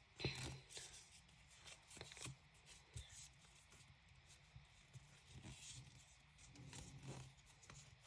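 Near silence with scattered faint rustles and light clicks of packaging and small accessories being handled.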